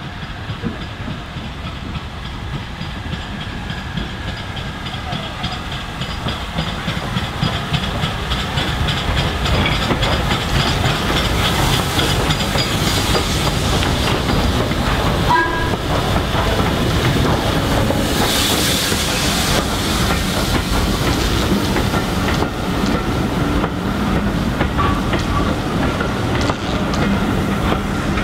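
Steam locomotive hauling a passenger train passes close by. Its sound grows louder over the first ten seconds, with a burst of steam hiss about eighteen seconds in as the engine goes past, then the coaches' wheels clicking over the rail joints.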